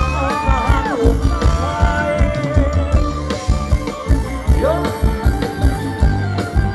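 Live band playing Thai ramwong (Phetchaburi-style) dance music: a steady drum beat under a gliding melody line.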